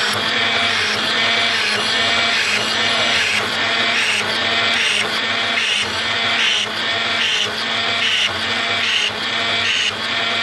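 Fully automatic gas burner drilling machine running, its drilling cycle repeating about every 0.7 seconds over a steady motor hum.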